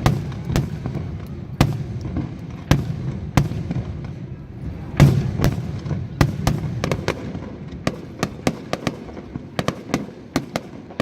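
Fireworks display: aerial shells bursting in an irregular string of sharp bangs over a low rumble, the loudest about halfway through, with quicker crackling pops toward the end.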